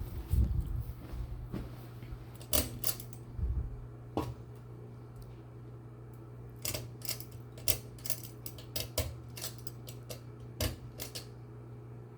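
Steady low hum of a running ceiling fan motor, with scattered sharp clicks and a few low thumps from handling the fan's controls.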